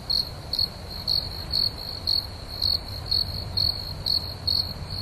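Cricket chirping: a steady high trill that pulses about twice a second, over a low hum.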